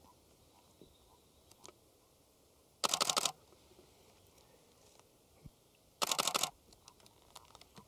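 Camera shutter firing in rapid continuous bursts, twice: a short rattle of quick clicks about three seconds in and again about six seconds in.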